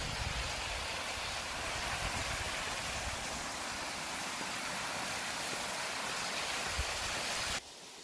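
Water pouring over a small stepped rock cascade into a pond, a steady rushing hiss. It cuts off suddenly near the end.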